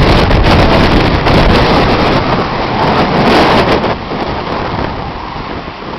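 Strong gusty wind buffeting the microphone in a loud, rumbling roar that eases a little about four seconds in.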